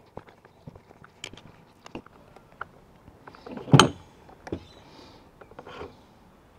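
Scattered clicks and knocks of a screwdriver and small metal parts being handled against a plastic chainsaw housing during disassembly, with one louder knock a little before halfway.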